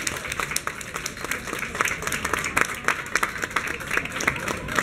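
Crowd applauding: many hands clapping irregularly and densely.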